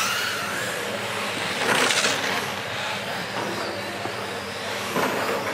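Radio-controlled model cars running on a carpet track, with a steady background of motors and tyres. Cars pass close twice, about two seconds in and again about five seconds in.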